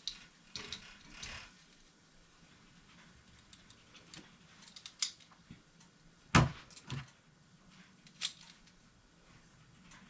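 Kitchen handling noises while a sandwich is being assembled: scattered clicks and light knocks of utensils and containers, with one heavier knock about six seconds in.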